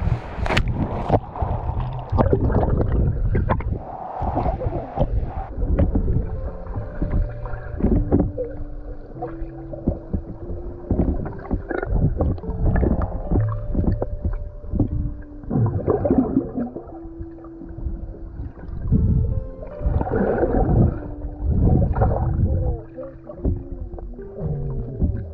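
Background music with a melody of held notes that step from pitch to pitch over a dense low accompaniment.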